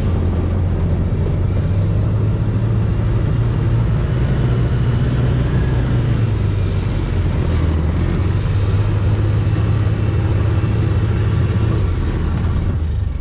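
ATV engine running steadily as the machine drives along a rough dirt track, with a constant low engine note.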